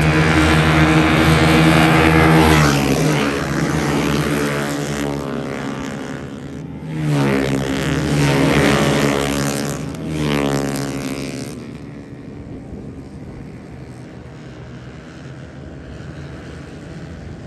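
Racing motorcycles at high revs passing close by, their engine pitch dropping as they go past. A second group passes about seven seconds in, then a fainter engine drone from bikes further off.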